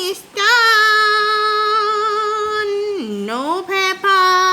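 A high-pitched voice singing out long held notes with a slight wobble, typical of a child or woman drawing out words in song. About three seconds in the pitch drops low and slides back up, then another long note is held.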